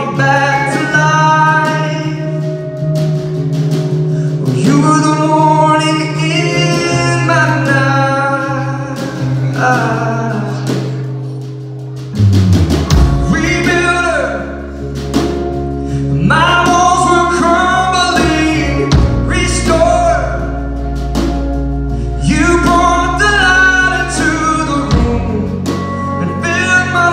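A live band playing a song: a man singing lead over strummed acoustic guitar, electric guitars and a drum kit. About twelve seconds in, the music dips briefly, then the band comes back in louder with a heavier low end.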